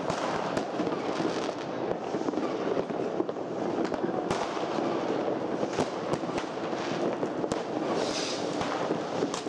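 Fireworks and firecrackers going off all around: a dense, continuous crackle of many small bangs, with sharp louder cracks scattered through it and a brief hiss near the end.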